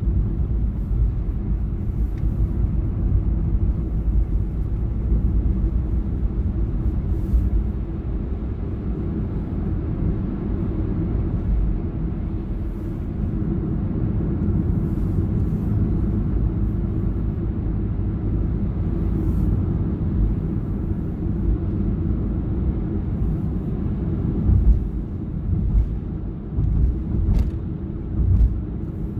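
Road and engine noise inside a moving car's cabin: a steady low rumble, with a few uneven swells in loudness near the end.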